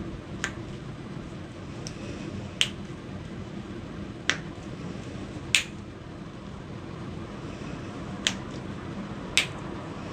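A patient's joints cracking during chiropractic adjustments: about six sharp pops at irregular intervals a second or more apart, with one fainter click among them, over a steady low background hum.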